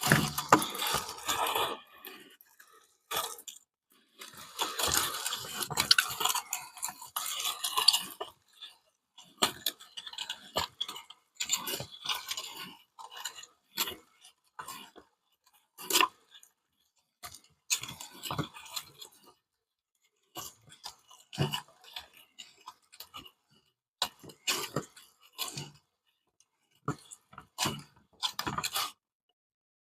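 Soft clay being worked through a metal meat grinder: dense scraping and clinking for the first eight seconds or so, then separate short clicks, clinks and scrapes with pauses between them.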